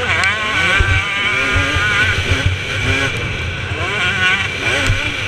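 2017 KTM 250 SX two-stroke motocross engine under hard riding, its pitch rising and falling again and again as the throttle is worked, with low thuds from the bike over the rutted track.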